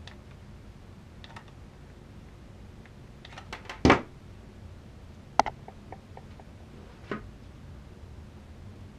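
A plastic hot glue gun set down on a tabletop with a sharp knock about four seconds in, after a few light clicks. Scattered handling clicks and a softer knock follow as cardboard is worked into the costume.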